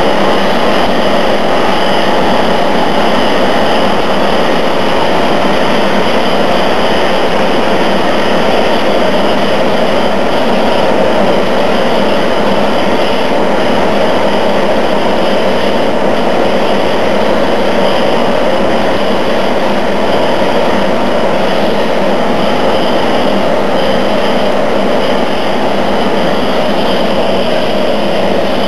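Honor Seiki vertical turning lathe running under a cut, its table spinning the workpiece against the tool: a loud, steady machining noise with several constant tones over it, unchanging throughout.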